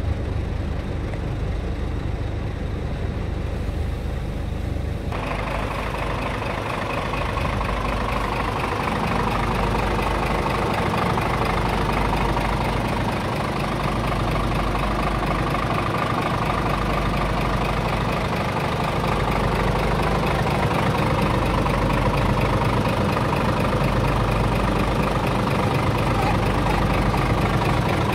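Scania R truck's diesel engine idling steadily. It is muffled at first, heard inside the cab, then brighter with more clatter from outside about five seconds in.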